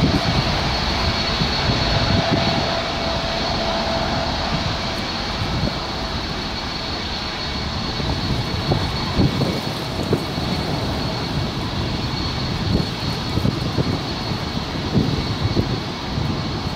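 Boeing 787-9's twin turbofan engines at high power during its take-off roll, heard from behind as the jet moves away down the runway. The engine noise is steady and loud, with a rough crackle in the low rumble.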